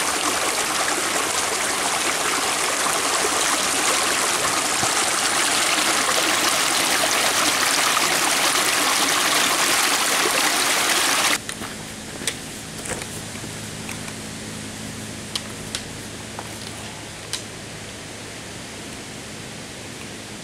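Rushing water of a forest stream, a steady loud rush that cuts off suddenly a little past halfway. A much quieter background with a few faint clicks follows.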